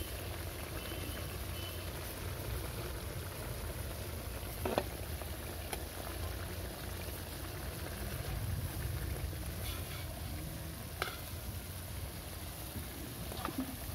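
Catfish pieces sizzling in hot oil in a metal kadai, over a steady low rumble. A few sharp clicks of the cooking utensils against the pan come through, once around the fifth second, again near the middle, and twice near the end.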